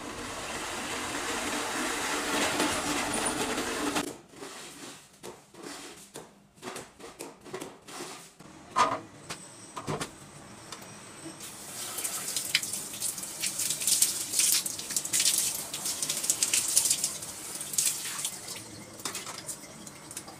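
Water spraying onto a plastic toilet paper holder box to test that it is waterproof. A steady rush of water fills the first few seconds, then a run of separate clicks and knocks follows. From about halfway on comes a crackly spatter of water drops hitting the plastic.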